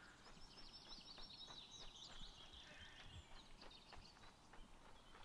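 A songbird twittering in quick runs of high chirps, fading out about four and a half seconds in. Soft, regular footsteps on a path run under it.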